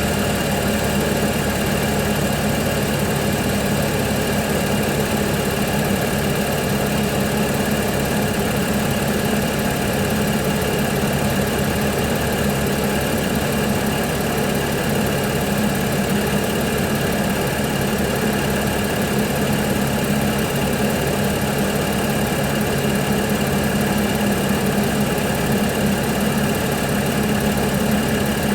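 Audi A6 3.0 TFSI supercharged V6 idling steadily during a cold start, with the rattle that the owner puts down to the timing chains.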